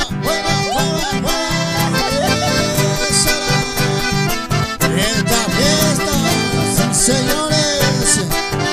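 A chamamé played live on accordion with acoustic guitar accompaniment, the accordion carrying the melody over a steady strummed rhythm.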